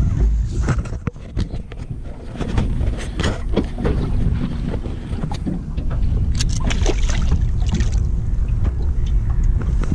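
Wind buffeting the microphone as a low rumble, with scattered knocks and rattles from handling a flathead on lip grips and releasing it over the side of a small aluminium boat.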